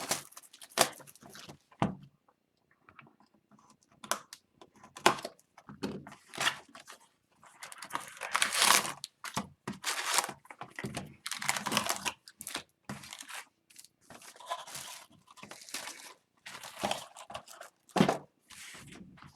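Plastic wrap and foil packs of a hockey card hobby box being torn open and crinkled by hand, in irregular rustling bursts that are loudest about eight to twelve seconds in.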